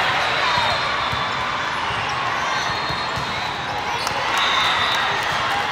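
Volleyballs being struck and bouncing in a large hall full of courts, with many short sharp hits over a steady babble of players' and spectators' voices.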